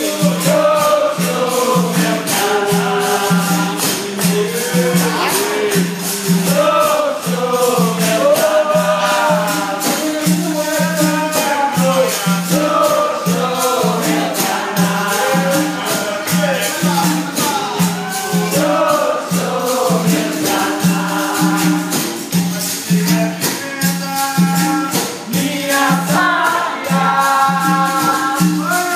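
Capoeira angola roda music: berimbaus playing a steady repeating rhythm with shaken caxixi rattles and hand percussion, under voices singing.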